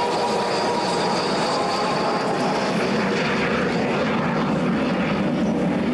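Avro Vulcan's four Bristol Olympus turbojets giving out steady, loud jet noise as the bomber flies past and banks away, with a faint high whine that fades in the first second or so.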